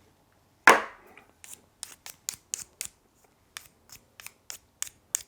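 Tableware being handled at a meal: one knock about a second in, then a run of short, sharp clicks, roughly three to four a second.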